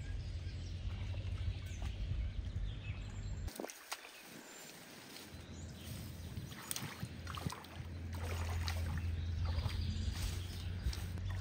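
Water sloshing and splashing in uneven, small strokes over a low rumble. The rumble drops away about three and a half seconds in and returns near eight seconds.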